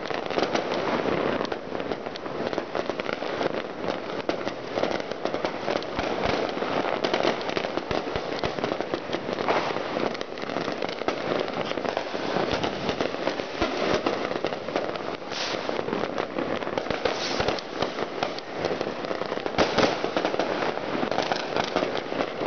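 Fireworks and firecrackers going off all around at once: a dense, continuous crackle of many small bangs, with several louder bangs in the second half.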